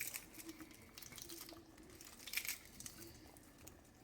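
Faint, scattered crackles of crispy fried bacon being crumbled by hand, a few soft crunches, the loudest about two and a half seconds in.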